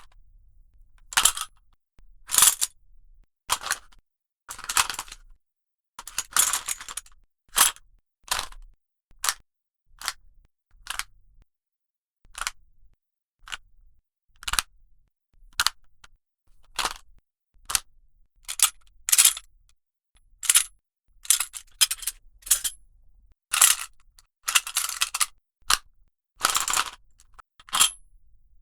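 Handled metal parts rubbed and knocked together, giving a string of short metallic clicks, clinks and brief rattles about one or two a second. This is foley made to stand for the light 'kacha-kacha' of a henshin belt or transformation item being touched.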